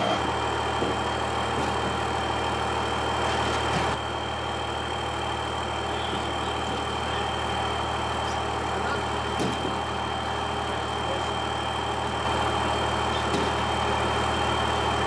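Old Dodge pickup truck's engine idling steadily, a low, even hum.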